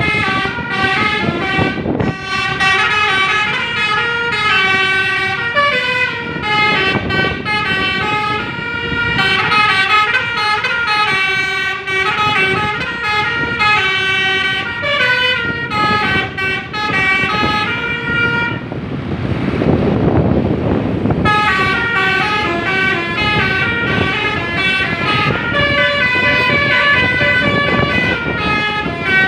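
Basuri telolet multi-tone bus horn playing quick melodic runs, the notes hopping up and down in pitch, with a short break of rushing noise about two-thirds through.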